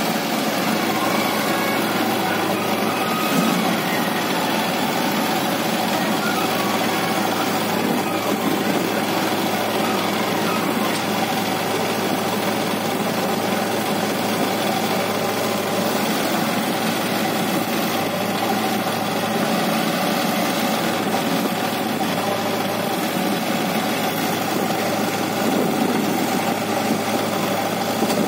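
Diesel engines of a backhoe loader and a farm tractor idling steadily, a constant hum with no revving.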